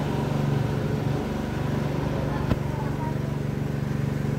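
A small engine or motor running steadily with an even hum, with a single sharp knock about two and a half seconds in.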